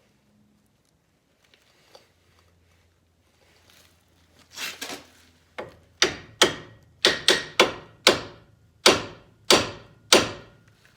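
A series of about a dozen hard hammer blows on metal, each ringing briefly, starting about four and a half seconds in and coming in quick runs; this is typical of knocking at a stuck brake part to free it.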